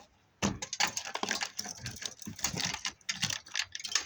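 Irregular, rapid clicking and clattering of wires and metal parts of a dishwasher's underside being handled and pulled, starting about half a second in.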